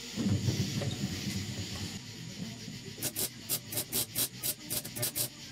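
Welder tacking a sheet-metal patch panel in place: a rapid run of about a dozen short crackling bursts, roughly five a second, starting about three seconds in.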